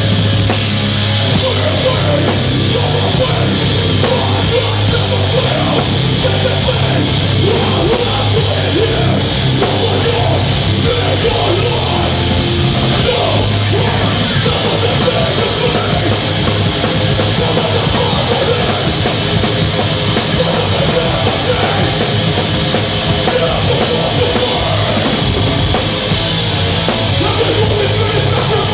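Heavy band playing live at full volume, with distorted electric guitar and a pounding drum kit running without a break.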